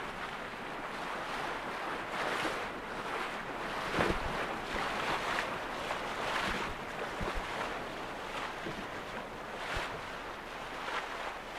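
Sailing yacht under sail: water rushing and swishing along the hull, swelling every second or two, with wind on the microphone and a few low thumps.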